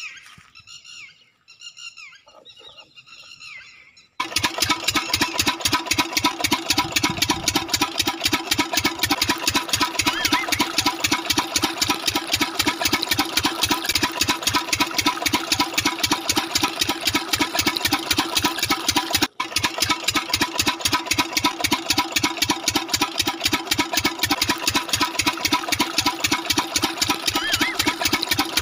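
Miniature model diesel engine water pump starting about four seconds in, then running with a fast, even chugging; the sound drops out for a moment about two-thirds of the way through. Before it starts there are a few seconds of music.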